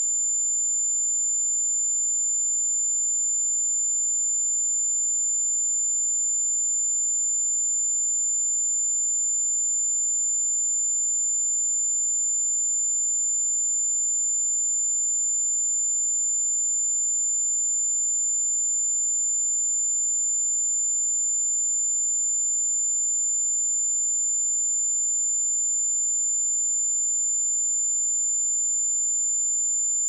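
A pure 7142 Hz sine-wave test tone: one steady high-pitched whistle held at a constant level.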